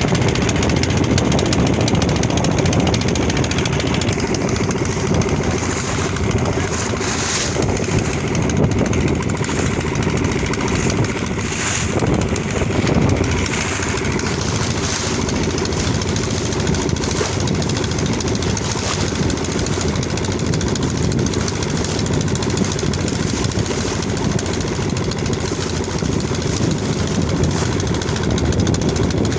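An engine running steadily with a continuous low rumble.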